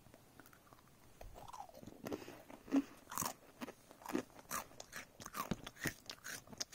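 A child making pretend chewing and munching noises with her mouth for a toy that is eating: a quiet, uneven string of short smacks, clicks and crunches that starts about a second in.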